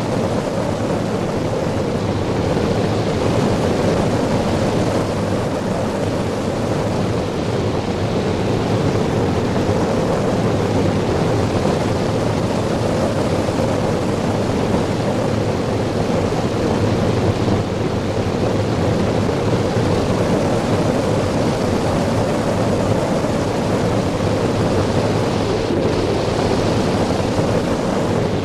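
Steady, loud rush of wind buffeting the microphone as the hang glider flies through the air.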